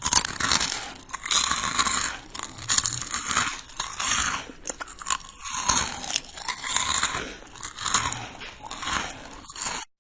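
Close-up crunchy chewing and biting, a quick run of loud crackling crunches, repeated over and over.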